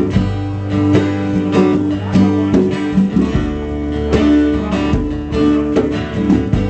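Country band playing an instrumental passage between sung lines, strummed guitar to the fore over a steady beat.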